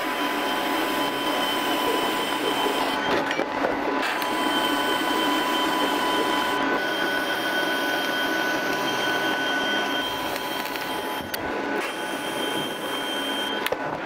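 TIG welding arc on a stainless steel flange and pipe elbow: a steady hiss and buzz with a faint high whine, broken a few times by short gaps.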